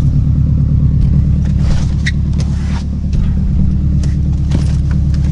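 2006 Subaru WRX's turbocharged flat-four engine idling steadily, just after a fresh oil change, with a few faint clicks about halfway through.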